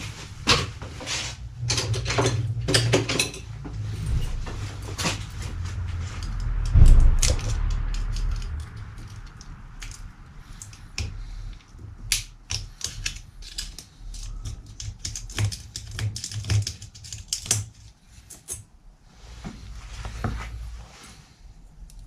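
Irregular small metallic clicks and rattles as the internals of a Shimano Nexus 7-speed hub are taken apart by hand with a small tool, to get at a bearing that runs rough. A louder knock comes about seven seconds in.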